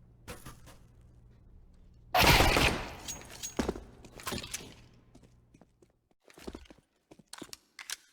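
A single loud bang about two seconds in, dying away over most of a second, followed by scattered clicks and knocks.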